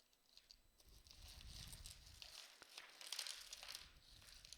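Light crinkling and rustling with small clicks as jewelry and its wrapping are handled and sorted.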